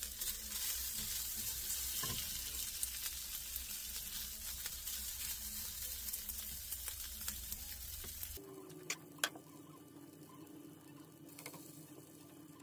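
Diced chorizo sizzling and crackling in hot fat in a frying pan while being stirred with a silicone spatula. About eight seconds in the sizzle cuts off suddenly, leaving a much quieter stretch with a couple of sharp clicks.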